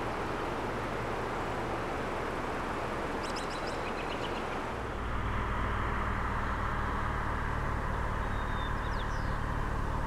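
Car running, a steady engine hum and rumble that grows louder about halfway through. A bird chirps a few quick times about three seconds in.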